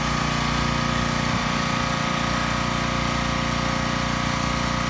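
Pressure washer running steadily while its foam cannon sprays a thick coat of soap foam, a constant machine hum under a hiss of spray.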